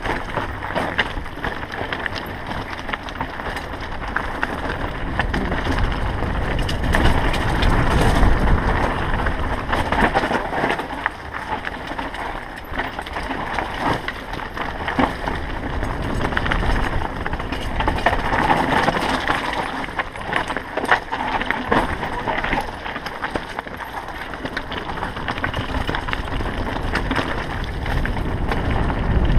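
Mountain bike descending rocky, gravelly singletrack at speed: a constant clatter of tyres over stones and the bike rattling, with rumble and wind on the camera's microphone.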